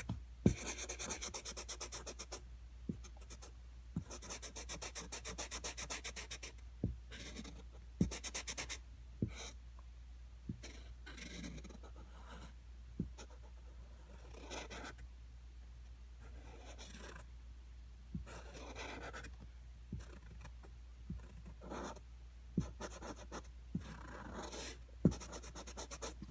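Black Sharpie permanent marker drawing and colouring in a heart on a plastic bin lid: bursts of fast scratchy strokes a second or two long, with a few light knocks in between.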